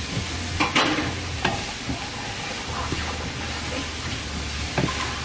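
Wooden spatula stirring diced onions and spices in a nonstick frying pan over steady oil sizzle, with a few sharper scrapes against the pan, the loudest about a second in and again near the end.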